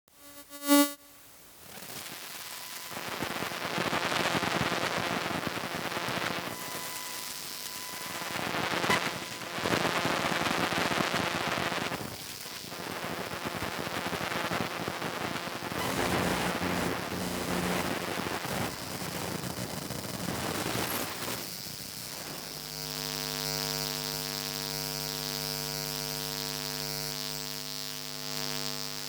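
Electromagnetic interference from electronic devices picked up by a homemade electromagnetic pickup microphone. A short pitched blip at the start gives way to shifting hissing, crackling noise, which settles in the last quarter into a steady, pitched electrical buzz.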